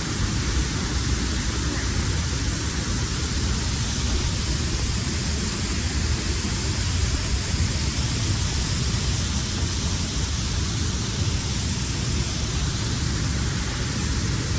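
Waterfall and fast-flowing water rushing: a dense, steady noise with no breaks.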